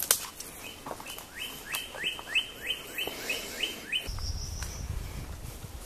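A songbird singing a fast series of about ten short rising notes, about three a second, followed by a brief higher whistle. A low rumble comes in near the end.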